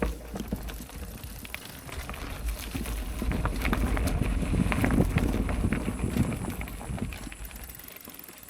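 Mountain bike rolling over a rocky dirt trail: tyres crunching on stones and the bike rattling in a stream of small irregular clicks, over a low wind rumble on the microphone. It grows louder in the middle and eases off near the end.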